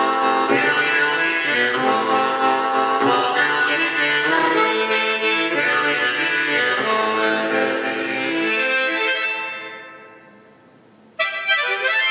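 QIMEI harmonica tuned to A playing notes and chords, dying away about nine seconds in. A little before the end a sudden bright ringing sound starts.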